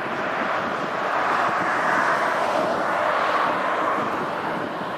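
Airbus A321's jet engines at taxi power, a steady rush that swells as the airliner passes, loudest between about two and four seconds in, then eases slightly. Wind buffets the microphone underneath.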